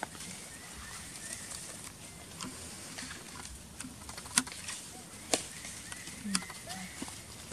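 Quiet outdoor background with a few sharp clicks, the loudest about four seconds in, and faint short chirping calls.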